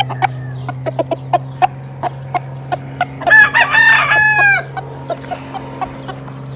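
Gamecock crowing once, about three seconds in: a single crow of a little over a second that drops in pitch at the end. Short clucks come before and after it, over a steady low hum.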